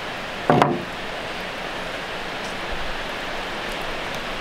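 Steady, even hiss of outdoor background noise, with one brief voice sound about half a second in.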